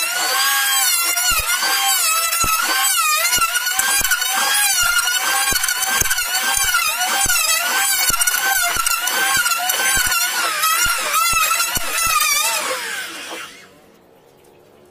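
Corded electric hand planer running and cutting across a hardwood tabletop, its whine wavering in pitch as the blades bite into the wood. About 12.5 seconds in it winds down and stops, then starts up again right at the end.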